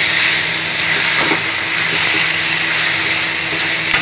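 Chicken and shallots sizzling in a hot iron kadai with a steady frying hiss while a steel ladle stirs them, with a few scrapes and clicks of the ladle on the pan and one sharp click near the end.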